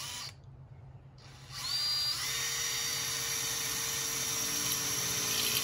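Cordless drill working on a white pipe: a brief burst at the start, then about a second and a half in it spins up with a quick rise in pitch and runs on at a steady whine.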